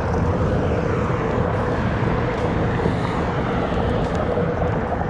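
Steady wind rumble on the microphone under a constant low droning hum.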